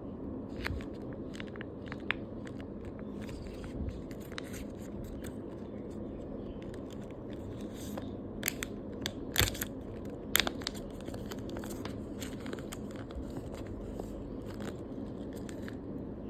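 Scattered crinkles and crackles of a tape-and-plastic taba squishy being handled and unwrapped, with a cluster of louder crackles about eight to ten seconds in, over a steady low background hiss.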